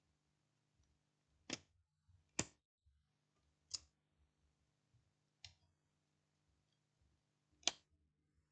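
Near silence broken by five faint, sharp clicks spaced a second or two apart: small laptop parts and connectors being handled during reassembly.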